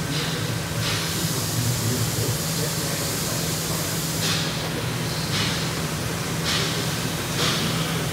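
3200-watt Trumpf TruLaser 2030 CO2 laser cutter running as it cuts sheet metal: a steady hiss over a low hum, with several short surges of louder hiss.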